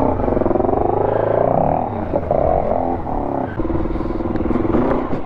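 Dirt bike engine running close by and being revved, its pitch rising and falling for the first few seconds, then holding steadier.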